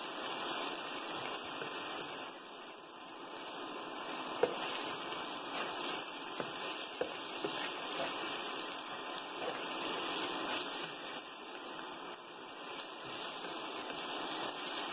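Sliced mushrooms and flour frying in butter in a nonstick pan, a steady sizzle as the flour is stirred in and toasted into a roux. A few light taps and scrapes of the spatula against the pan come around the middle.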